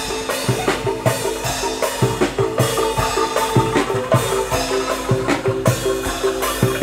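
Street band of bamboo xylophones played with mallets over a drum kit, playing a lively tune: quick pitched wooden notes over a steady beat of about two to three strokes a second.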